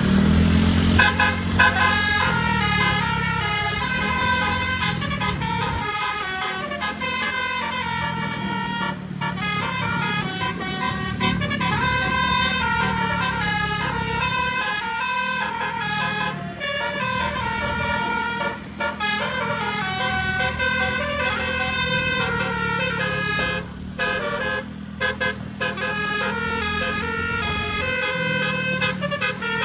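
Tour bus telolet horn, a multi-trumpet air horn, playing a long melody of stepped tones that jump in pitch several times a second. It plays over the bus's engine running, with a few brief breaks in the tune.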